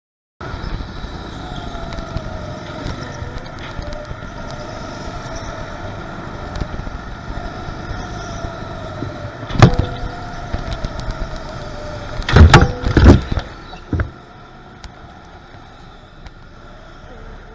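Go-kart engine running through laps, its pitch slowly rising and falling with speed, with several loud sharp knocks: one about ten seconds in and a cluster two to three seconds later. The knocks fit the rattling that the kart has again.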